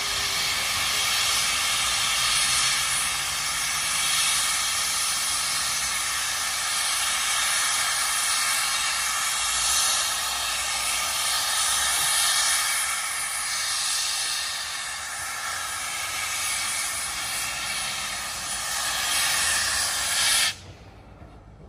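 Steam locomotive venting steam: a loud, steady hiss that cuts off suddenly near the end.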